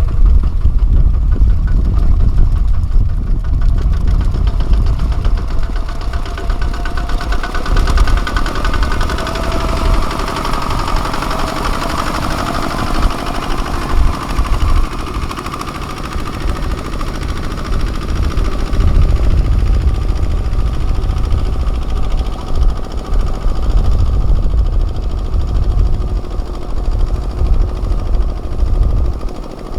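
Kubota ZT155 mini tractor's engine running steadily at work ploughing a field, loud and low-pitched throughout.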